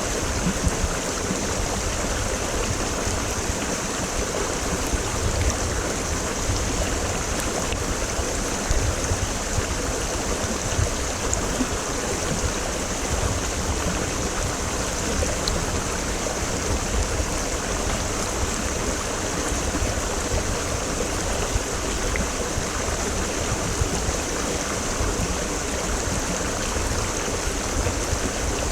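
A mountain stream (quebrada) running steadily over rocks, a continuous rush of flowing water with low rumbling underneath.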